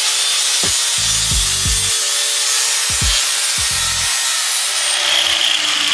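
A power tool cutting or grinding steel for new motor mount rails: a steady harsh hiss with a whine that drops in pitch near the end. Background music with a thumping bass beat plays over it.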